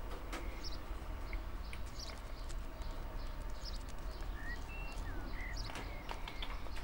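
Garden ambience: a steady low rumble with scattered faint clicks, and a few short bird chirps a little past the middle.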